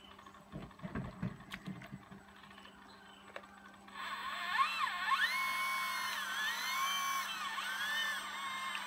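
RC hydraulic excavator's pump motor whining, starting about four seconds in, its pitch dipping and rising again and again as the boom, arm and bucket move. Before that there are only a few soft low thumps.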